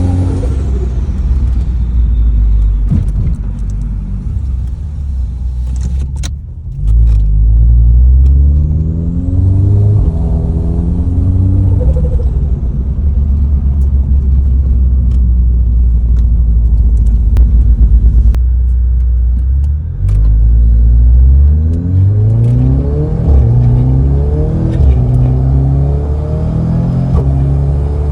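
Audi S3's turbocharged four-cylinder engine sounding through a freshly fitted ECS Tuning valved, resonated 3-inch catback exhaust. The revs climb and drop several times, in a run of rising pulls with short drops between them.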